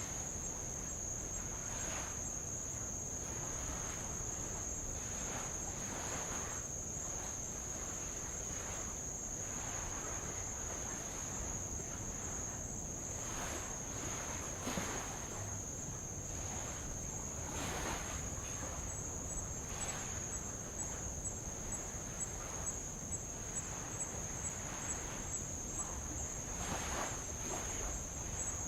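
A chorus of insects, crickets or similar, holds one high, steady tone throughout. Small waves wash softly over old lava rock several times.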